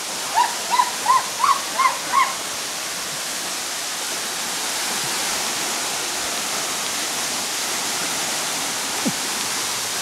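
Waterfall sheeting down a steep rock face: a steady rushing hiss of falling water. Near the start, a quick run of six short rising calls, about three a second, rides over it.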